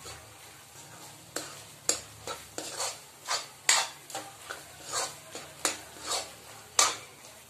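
Steel spatula scraping and tapping around a metal kadhai as crumbled milk cake is stirred and roasted in ghee, with frying sizzle underneath. Starting just over a second in, the scrapes come irregularly, about twice a second. It is kept moving so it does not stick to the bottom while it browns lightly.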